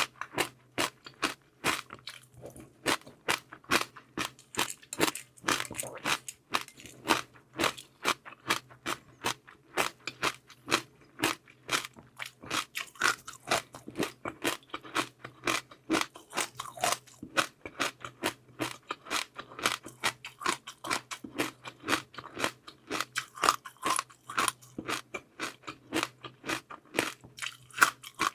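Close-miked chewing with rapid, sharp crunches several times a second, typical of biting through crunchy seaweed pearls. A faint steady low hum lies underneath.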